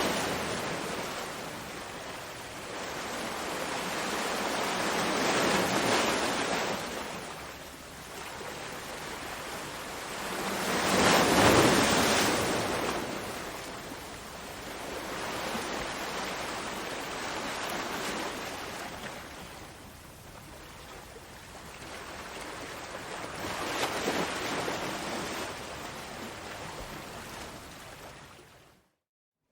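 Ocean waves breaking and washing up on shore, rising and falling in slow surges every five or six seconds, the biggest one about a third of the way in. The sound cuts out to silence for a moment near the end.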